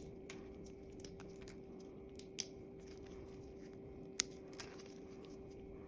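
A few sharp clicks and taps from small manicure tools, a second or two apart, the loudest about four seconds in, over a faint steady hum.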